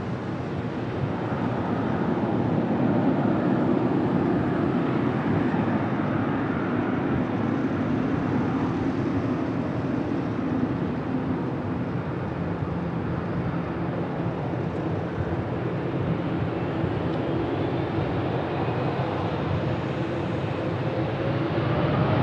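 Jet airliner engines running: a steady, dense rush that builds a little over the first few seconds, with a faint rising whine near the end.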